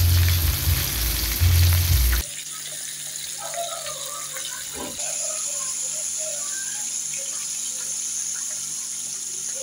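Flour-coated whole fish frying in hot oil in a pan, sizzling steadily. About two seconds in the sound drops abruptly to a quieter, even sizzle.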